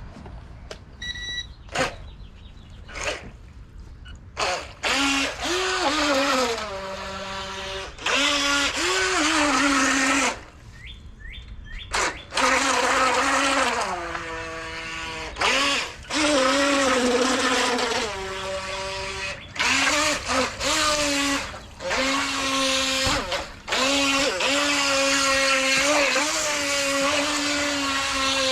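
Small electric motor of a Zyerch RC racing boat whining in repeated runs as the throttle is worked, its pitch rising and falling with speed, with short pauses between runs.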